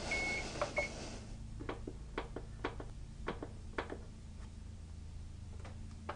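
Kitchen oven's electronic control panel being set: two short high beeps in the first second, then soft clicks of its buttons being pressed about twice a second.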